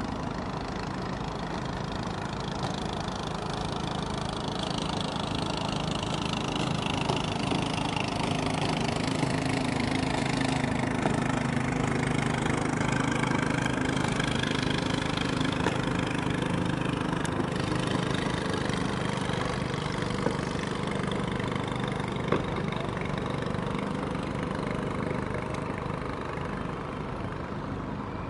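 Boat engine running steadily under a hiss of water and air, a little louder through the middle and easing off near the end.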